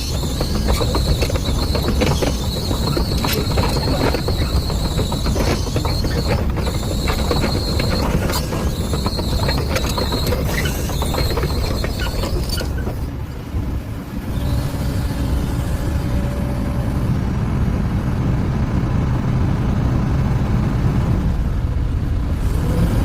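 Excavator on the move, its steel tracks clattering and squealing over the engine's running sound. About thirteen seconds in the clatter and squeal stop, and the engine keeps running steadily.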